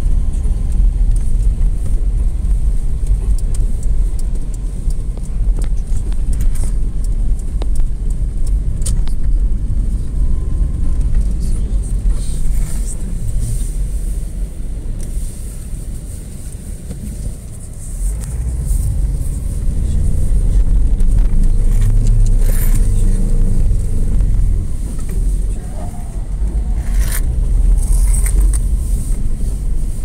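Car driving on snow-packed roads, heard from inside the cabin: steady low engine and road rumble that eases off a little past halfway and picks up again.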